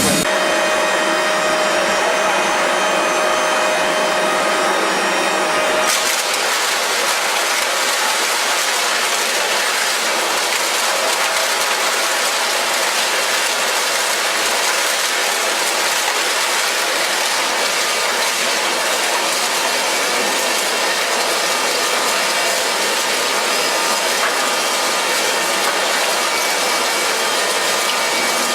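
A machine running with a steady rushing noise. Several high humming tones over it cut off about six seconds in, and the rushing goes on unchanged.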